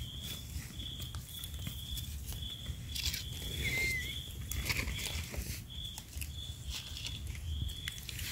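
Crackling and rustling of dry forest litter as termite mushrooms are picked by hand. In the background a high chirp repeats about twice a second, and a short rising whistle comes about four seconds in.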